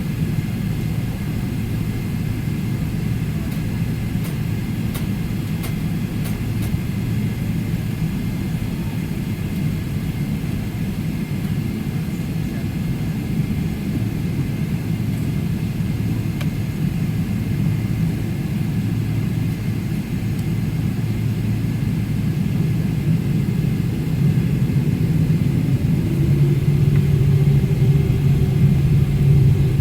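Boeing 777-300ER's GE90-115B engines running, heard from inside the cabin as a steady low rumble while the airliner taxis. Near the end a new steady drone joins in and the noise grows a little louder.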